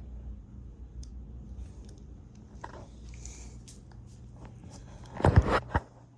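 A 42-inch Hunter Brighton ceiling fan running with a low, steady hum after being set to pull air down. About five seconds in there is a loud rustling thump.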